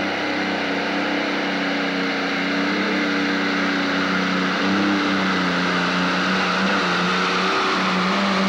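Multi-engine modified pulling tractor running flat out under load as it drags the weight-transfer sled. It makes a loud, steady engine note that dips slightly in pitch about halfway through and then holds.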